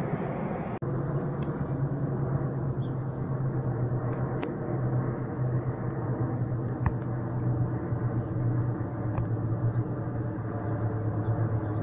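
A formation of light aircraft flying overhead, a steady low drone of many engines together. The sound drops out for an instant about a second in.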